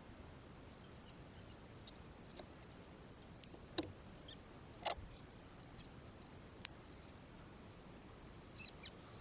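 Scattered light clicks and taps of small hand tools and parts being handled, irregular and unhurried, with one sharp click about six and a half seconds in.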